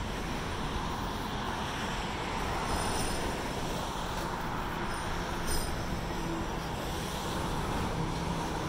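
Steady road traffic on a city boulevard, cars passing, a little louder about three seconds in.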